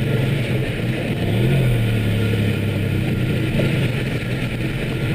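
DeLorean DMC-12's V6 engine running steadily at low speed, with a brief slight rise in pitch about a second and a half in.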